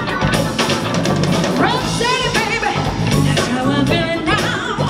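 Live band playing: drum kit, bass, electric guitar and keyboard, with a woman's lead vocal coming in about a second and a half in.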